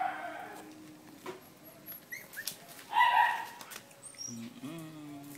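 Young puppies whining and yelping: one loud, high cry about three seconds in, with short faint squeaks before it and a lower rising whine near the end.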